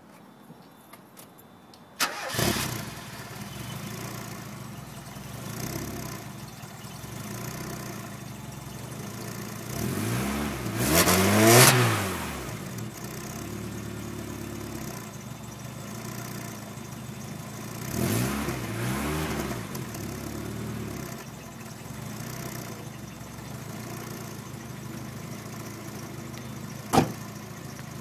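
A 1992 Mazda Miata's 1.6-litre four-cylinder engine starting about two seconds in, then idling through the exhaust, blipped up and back down twice, the first rev the loudest. A single sharp crack sounds near the end.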